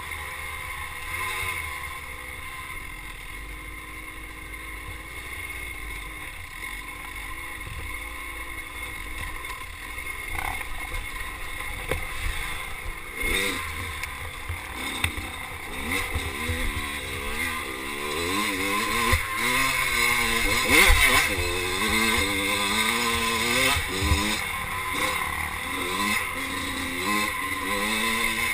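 Dirt bike engine revving up and down again and again as it is ridden along a trail, picked up by a camera on the bike. It gets louder in the second half.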